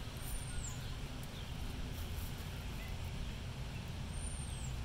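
Steady low outdoor rumble, with two short, thin, high chirps that fall in pitch, about half a second in and again near the end.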